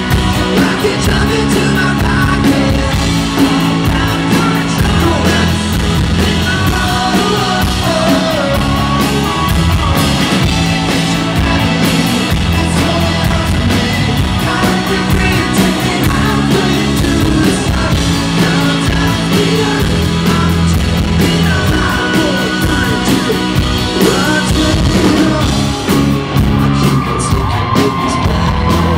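Live pop-rock band playing: male lead vocal singing over electric guitar, bass and drums with a steady beat.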